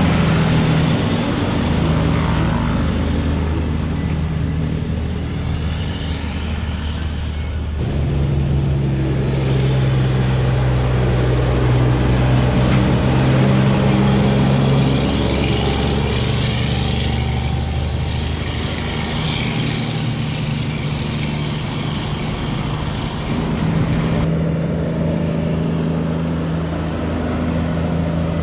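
Heavy diesel tractor-trailer trucks running slowly past at close range: a steady low engine hum that grows and fades as each truck goes by. The sound changes abruptly about 8 s in and again near 24 s.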